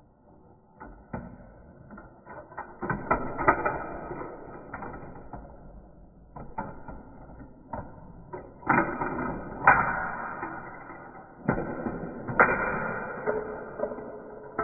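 Marbles rolling and clattering along a Gravitrax plastic marble run: many sharp clicks and clacks as they drop onto and knock against track pieces, over a rolling rattle that swells and fades several times.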